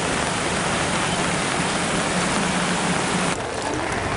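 Steady rushing water noise of flood footage. The noise thins and changes about three seconds in.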